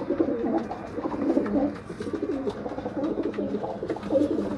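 Racing pigeons cooing: low, warbling coos overlapping one another without a break.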